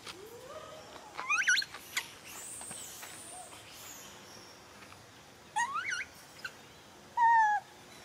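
Several short, clear whistled animal calls: one sweeps upward about a second in and another a little past halfway, each with a wavering top, and a brief steady call near the end is as loud as the first.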